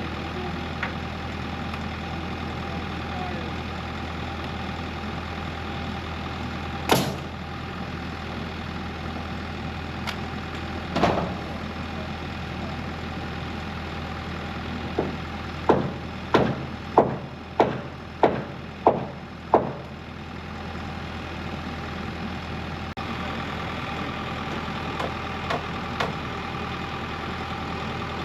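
Bobcat E55 excavator's diesel engine idling steadily. Over it come single sharp knocks, then a run of about eight evenly spaced knocks, roughly two a second, near the middle.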